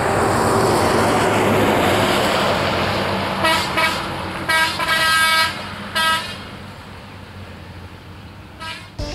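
Rumble of a diesel-hauled passenger train running past, fading as it draws away. From about three seconds in, a multi-note horn sounds five short blasts, with one fainter blast near the end.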